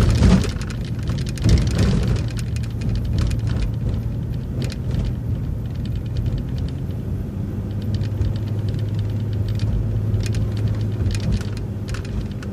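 A city bus in motion, heard from inside: a steady engine and drivetrain drone with rattling and clicking throughout, and two louder jolts in the first two seconds.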